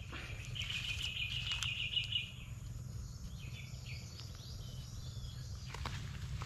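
A high, rapidly pulsed trilling call lasting about two seconds, followed by fainter high chirps, over a steady low rumble.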